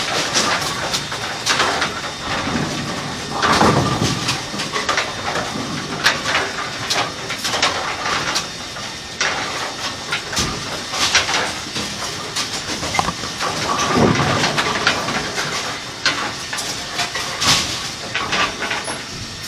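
Kegel Pin Shine bowling-pin cleaning machine running with a steady hiss, with irregular rubbing and knocks throughout as bowling pins are handled and wiped with a rag.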